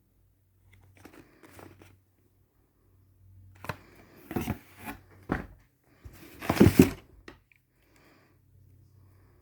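Packaging being opened by hand: a few rustling, scraping and tearing strokes of paper or plastic, with the loudest burst about two-thirds of the way through.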